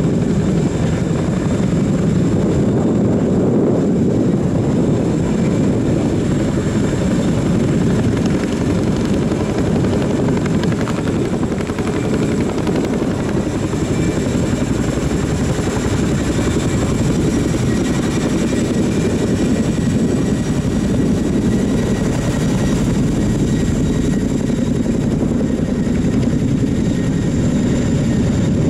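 Royal Air Force Chinook tandem-rotor helicopter departing, its rotors and twin turboshaft engines running loud and steady as it lifts off and climbs away overhead. Faint high whining tones sit above the deep rotor noise.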